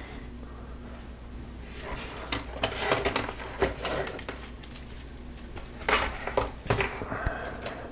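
Plastic Lego Technic parts clicking and rattling as the half-built wheel loader model is handled and turned around. The clicks and clatters start about two seconds in and come in an irregular run.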